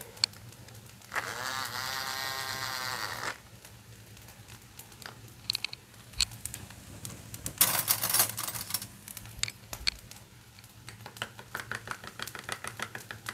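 Small battery-powered handheld coffee frother whirring for about two seconds, its pitch rising then dropping. A brief noisy scrape follows midway, and near the end a plastic spoon stirs coffee in a glass tumbler in quick light clinks and scrapes.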